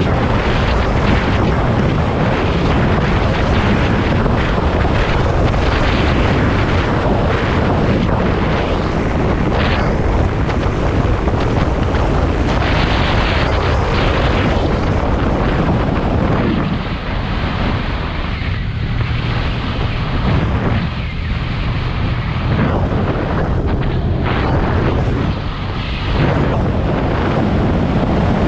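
Wind buffeting the microphone of a moving motorcycle, with the bike's engine and road noise underneath. The wind eases for a few seconds past the middle and again briefly near the end.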